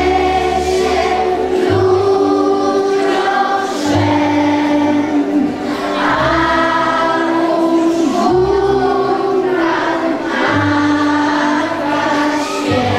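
Children's choir singing a Polish Christmas carol (kolęda) together, over a steady instrumental accompaniment whose low notes change every couple of seconds.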